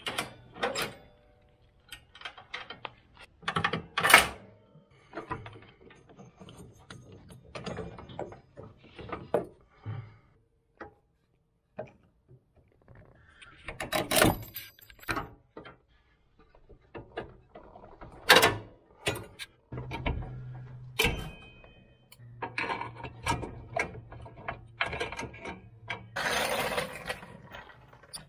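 Hand tools clanking and clicking on the metal fittings at the rear of a lawn tractor as it is taken apart: irregular knocks and clinks with short pauses, and a longer rattling stretch near the end.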